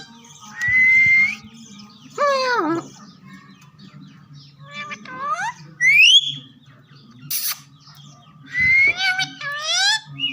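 Green parrots whistling and calling in a string of short pitched notes: a held whistle near the start, a falling call, rising glides about six seconds in and a quick run of calls near the end. A steady low hum lies underneath.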